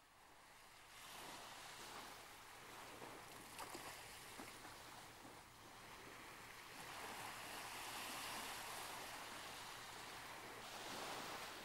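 Faint wash of surf and lapping water on a lagoon, swelling and easing.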